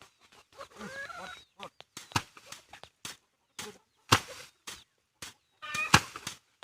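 Rice sheaves beaten by hand to thresh the grain: three hard thwacks about two seconds apart among lighter knocks and rustling, with poultry calling in between.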